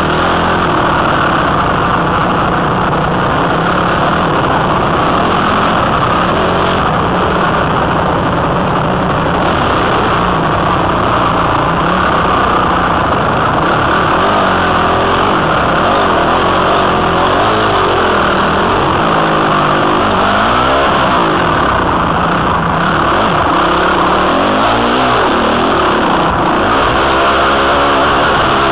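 Honda CRF250 dirt bike's four-stroke single-cylinder engine, heard close from a helmet camera, revving up and down again and again with the throttle and gear changes while riding.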